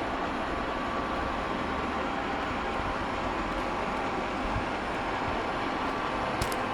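Xiaomi Robot Vacuum E10 running, a steady motor hum and whir with a faint whine, as it makes its way back to its charging dock. A couple of light clicks come near the end.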